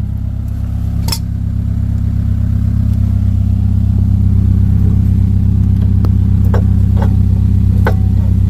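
Subaru Outback engine idling steadily, getting a little louder over the first few seconds, with a few sharp metal clinks from work on the rear brake calipers about a second in and again near the end.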